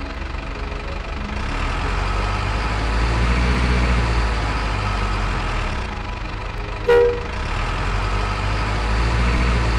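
Truck engine running with a steady low rumble that swells and eases twice as the truck drives, and one short horn toot about seven seconds in.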